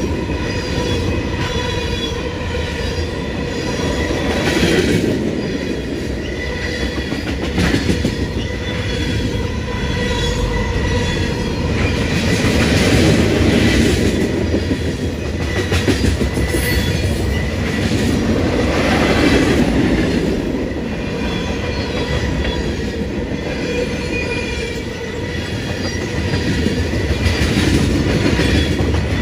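Cars of a CSX manifest freight train rolling past on the rails, wheels clicking over the track and a steady wheel squeal running under the rumble, the noise swelling and easing as the cars go by.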